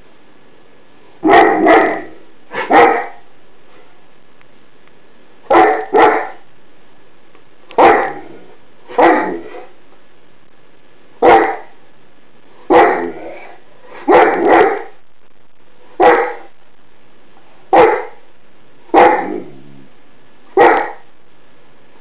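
Greater Swiss Mountain Dog alarm barking: about fifteen loud barks, singly and in pairs, every second or two, with a pause of about three seconds after the first few.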